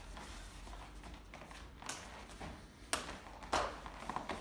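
Two people grappling at close quarters: feet shuffling on the floor and clothing rustling, with a sharp tap about three seconds in and a louder scuffle just after it.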